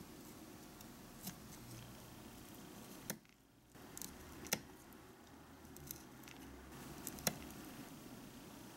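Miniature knife cutting a small broccoli floret on a tiny wooden cutting board: several sharp clicks, one every second or two, as the blade cuts through and taps the board, over a faint steady hum.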